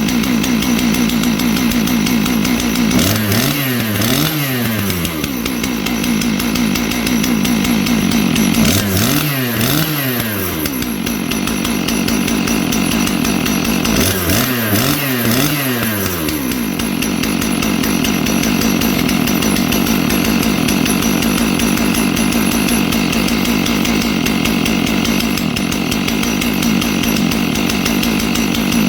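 Two-stroke engine of a Stihl 661 clone chainsaw kit running, revved up and back down three times, then settling into a steady run. The owners later call its carburetor finicky and hard to tune.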